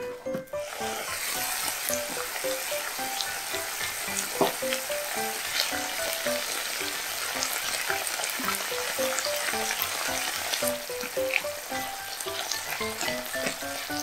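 Broccoli stir-frying in oil in a non-stick frying pan: a steady sizzling hiss that starts about half a second in, with scattered sharp clicks through it.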